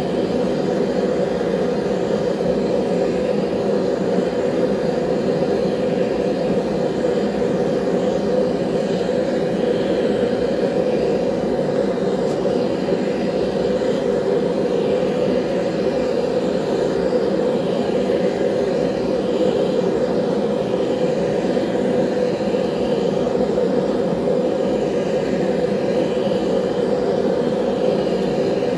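Forge burner running steadily, an even, unbroken rushing noise heavy in the low middle range, as it heats knife blades for annealing.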